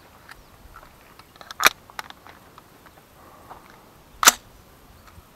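Two shots from a suppressed 9mm AR-15 carbine (Rock River Arms LAR9 with a Gemtech Trinity silencer), about two and a half seconds apart, each a short sharp crack, with a few faint clicks around the first.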